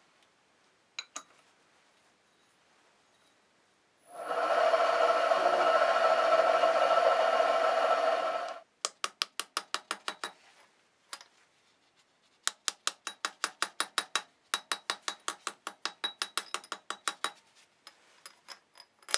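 Metalworking machine tool: a motor runs steadily for about four seconds and stops abruptly. Then come two runs of quick, rhythmic metallic clicks and a sharp clink at the end.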